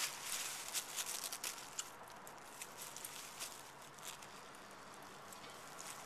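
Crumpled brown paper crinkling and rustling as a long-haired dachshund noses and chews into it. A dense crackle for the first couple of seconds, then scattered crinkles.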